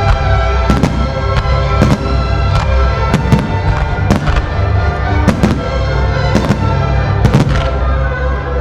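Display fireworks going off in a rapid, irregular series of sharp bangs, about two a second, over loud opera-themed music played for the show.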